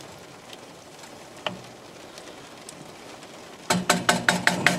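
Steady hiss of heavy rain, then near the end a quick run of about eight sharp knocks with a ringing tone: a wooden spoon knocking against the frying pan as the bolognese sauce is stirred.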